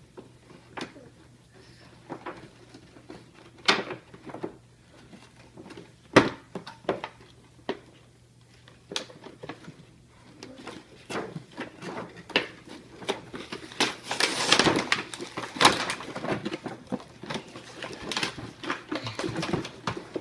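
Cardboard and plastic toy packaging being handled and pulled apart on a table: scattered clicks and knocks at first, then a longer stretch of rustling and tearing about two-thirds of the way through.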